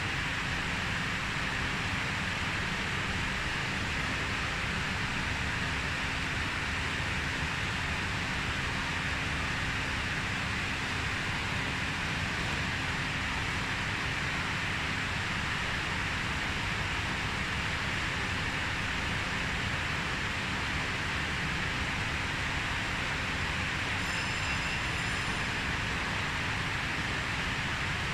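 Steady whooshing air noise of running cooling fans, with a faint low hum underneath. A brief faint high electronic whine comes in about four seconds before the end.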